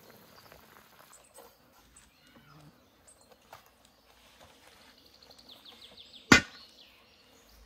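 Quiet rural outdoor ambience with faint bird chirps, broken by a single sharp knock about six seconds in.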